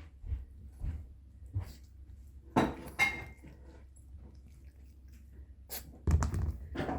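Pomeranian puppy playing with a squeaky plush toy: scattered knocks and rustles, with a brief high squeak about three seconds in and a louder flurry of knocks near the end.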